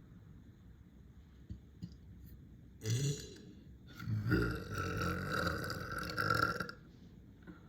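A person burping deep and low: a short burp about three seconds in, then one long drawn-out burp lasting nearly three seconds.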